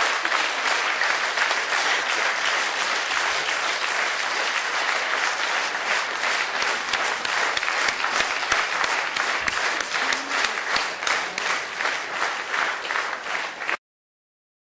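Concert hall audience applauding steadily, cutting off abruptly near the end.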